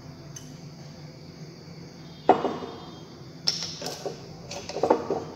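Amber glass reagent bottle set down on a bench with one sharp knock about two seconds in, followed by several lighter clicks as its screw cap is handled.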